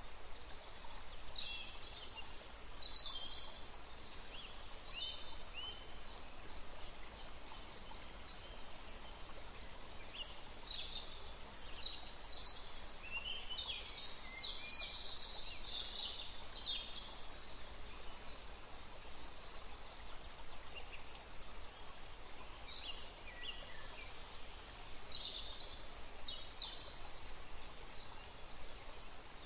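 Birds chirping in scattered bursts, busiest near the middle and again near the end, over a steady hiss.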